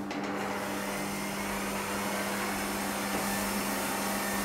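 Electric stand mixer running at a steady speed with an even motor hum, beating sponge cake batter of flour, butter, sugar, eggs and milk.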